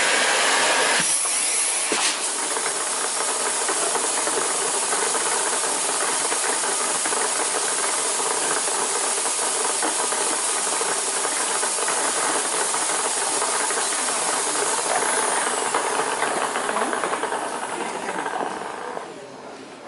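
Miele C3 Brilliant canister vacuum cleaner running with a steady airflow hiss and motor whine. It fades away over the last couple of seconds as the motor winds down.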